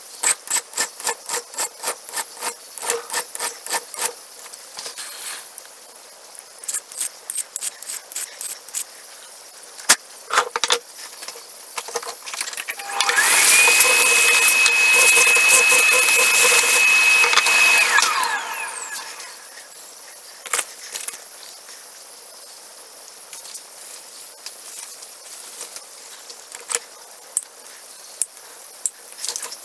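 Hand file rasping on a small metal knife part in short runs of about three strokes a second. Partway through, a small motor runs for about five seconds, the loudest sound here, its pitch rising as it starts and falling as it stops. Light scattered clicks and taps follow.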